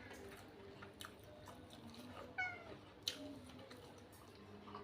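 A domestic cat meows once, a short call falling slightly in pitch about halfway through, followed by a sharp click.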